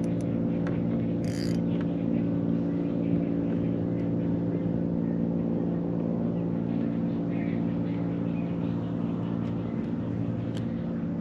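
Electric trolling motor of an Old Town AutoPilot kayak running at a steady speed, a constant humming whine with several even tones.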